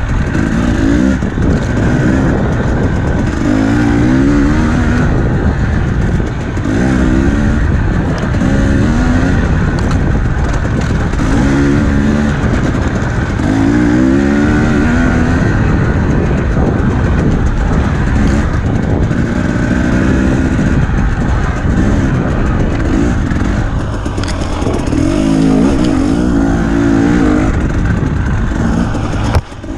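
Dirt bike engine revving repeatedly under hard riding, its pitch climbing with each twist of the throttle and falling back between, every second or two, over a constant rush of wind and trail noise.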